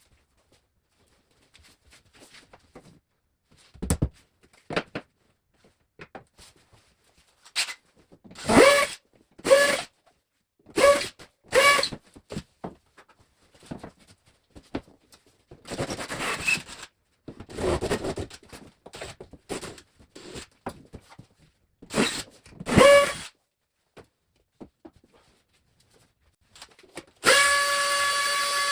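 Cordless drill/driver run in short bursts, each one spinning up to speed and stopping, about eight times, with a longer steady run near the end. A few rubbing, scraping sounds come between the middle bursts.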